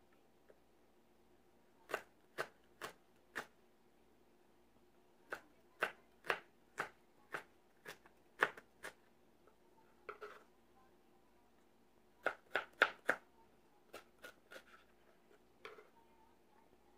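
Kitchen knife chopping peeled ginger on a plastic cutting board: sharp knocks in short runs of a few strokes, about two a second. The quickest and loudest run comes about three-quarters of the way through.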